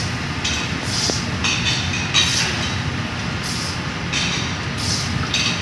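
Spatula scraping and stirring thick tomato sauce in a steel pot, in short strokes about once or twice a second, over a steady low rumble.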